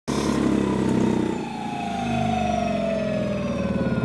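Scooter's 3 kW electric motor and rear wheel spinning free with no load, a whine of several tones falling steadily in pitch as the wheel runs down off the throttle, over a low pulsing hum.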